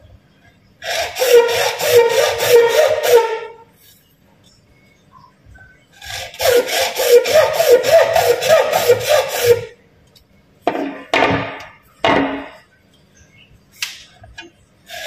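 Hand tool worked back and forth on PVC pipe, in two runs of rapid strokes a few seconds long, several strokes a second, then three short single strokes near the end.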